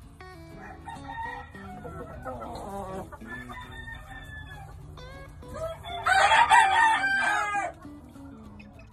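Doc Robinson gamefowl rooster crowing once, loudly, about six seconds in, the crow lasting under two seconds.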